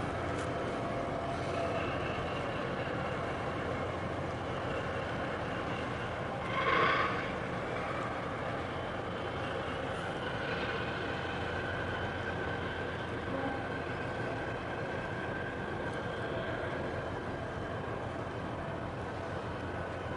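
Steady low rumble of distant engines with faint held tones over it, and one brief louder, higher-pitched sound about seven seconds in.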